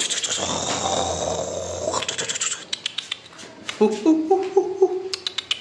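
A loud scraping rustle for about two seconds, then a Pomeranian puppy's claws clicking and tapping on a marble floor in two short runs. A brief voice-like sound comes about four seconds in.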